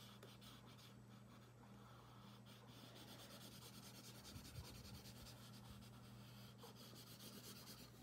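Faint scratching of a coloured pencil on paper in quick, repeated shading strokes, over a low steady hum.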